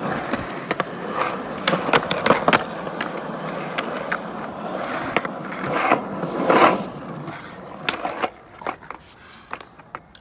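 Skateboard wheels rolling over concrete, with several sharp clacks of the board. The rolling dies away about eight seconds in.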